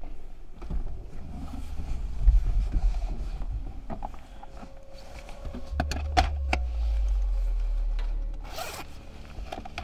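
Rustling and scraping of a nylon jacket and hands searching around a car's centre console, with a few sharp clicks around the middle and a quick zip pulled near the end.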